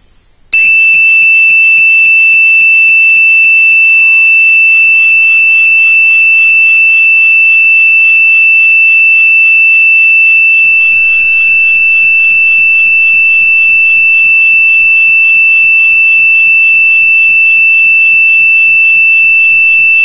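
Fire alarm sounder on an Esser fire alarm control panel system set off in fire alarm for detection zone 1. It starts abruptly about half a second in as a loud, steady, high-pitched tone, with a regular pulsing of about three or four beats a second underneath.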